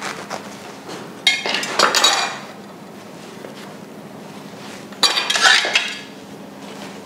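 A bread knife and a freshly cut crusty focaccia being handled on a wooden board. There are two short bursts of clatter and crust crackle, about a second in and about five seconds in.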